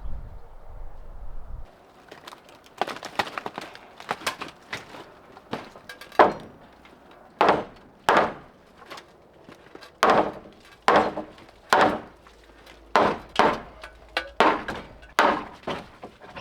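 Repeated heavy blows on old wooden boards as a wooden shed is knocked apart in demolition: about a dozen sharp knocks and cracks, roughly one a second, starting about two seconds in after a little wind rumble on the microphone.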